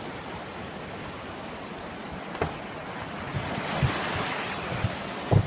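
Surf breaking and washing up the beach, with wind buffeting the microphone; the rush grows louder about halfway through. A few short low thumps sound over it, the loudest near the end.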